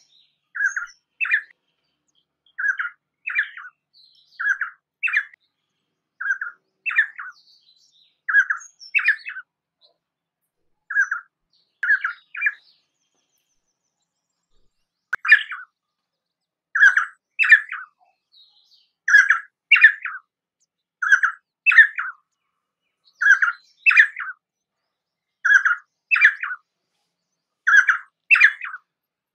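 Painted spurfowl calling: a short phrase of two quick notes, repeated about every two seconds. A pause of a couple of seconds falls near the middle, and the phrases that follow are louder.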